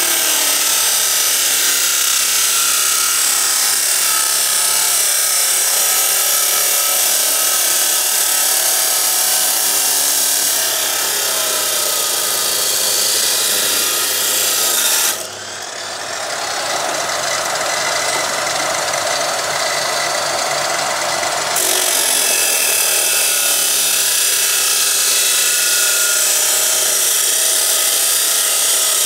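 2400 W Yamasu YMS-355-1 abrasive cut-off saw with a 355 mm disc, grinding continuously through square steel tubing. About halfway through, the sound dips and changes tone for several seconds, then comes back as before.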